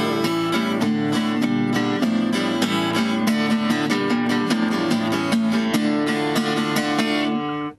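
Acoustic guitar strumming chords in a steady rhythm, the instrumental close of a bard song. It cuts off abruptly near the end.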